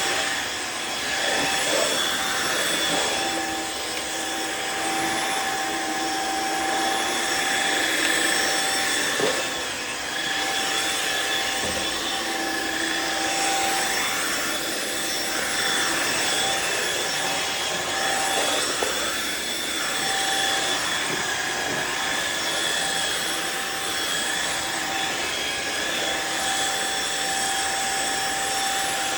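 Riccar R70 floor washer running: a steady motor whine over the rushing sound of its suction, the rush swelling slightly now and then.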